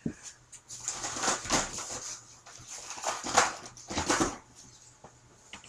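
Irregular rustling and soft knocks of cardboard tubes and craft supplies being gathered up and handled.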